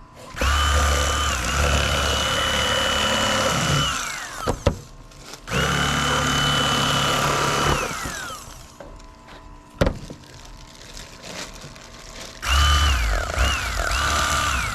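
Electric fillet knife running in three bursts while cutting through fish. The motor whine drops in pitch each time it is switched off. A single sharp click comes between the second and third bursts.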